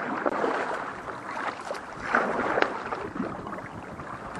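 Kayak moving through water: water swishing and gurgling along the hull with paddle strokes, swelling about two seconds in, with a light click or two.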